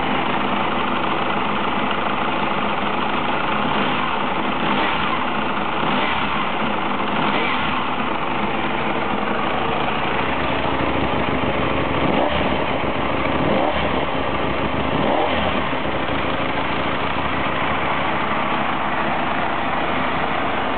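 Ducati Desmosedici RR's 989 cc V4 engine idling steadily, with three short blips of the throttle about twelve to fifteen seconds in.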